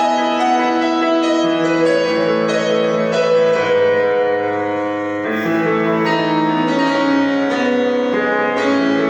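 Solo piano playing a slow new-age piece, with held chords and melody notes struck about once or twice a second.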